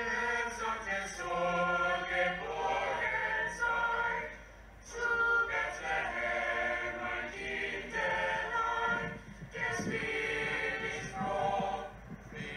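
A choir singing unaccompanied, in long phrases with a short break a little before halfway and another near the end.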